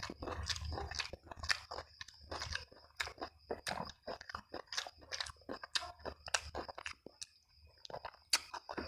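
A person chewing and biting food close to the microphone: many quick crunchy clicks and wet mouth sounds, with a short pause about seven seconds in.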